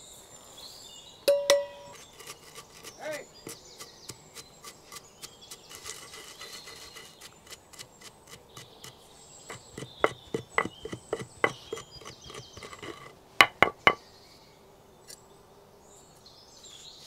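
Dry-roasted whole spices (coriander, cumin, mustard seeds and others) being pounded with a pestle in a stone mortar: a steady run of sharp knocks, about three a second, with three louder blows near the end, grinding them into masala powder. Birds chirp faintly in the background.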